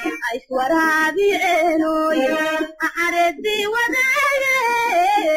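A woman singing a slow melody, holding long notes that waver and bend.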